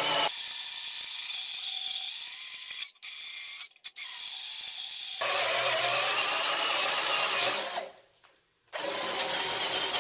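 Ridgid R82005 12 V cordless drill/driver boring into a wooden beam with a 30 mm spade bit. The motor's whine rises and falls in pitch under load. It stops briefly near three and four seconds in and for about a second around eight seconds in.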